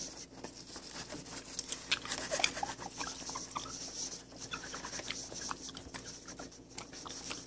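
Tissue dampened with hand sanitizer rubbing back and forth on a tablet's glass screen: an irregular scrubbing hiss with a few short high squeaks, as Sharpie marks are wiped off.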